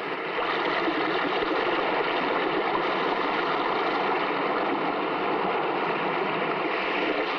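Old-time radio sound effect of sea surf washing against the shore, a steady rushing noise with no break.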